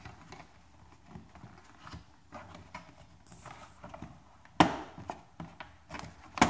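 Hands working a Tesla Model S's plastic cowl panel and trim clips loose: scattered light knocks and rubbing of plastic, with two sharp clicks, one about four and a half seconds in and one near the end.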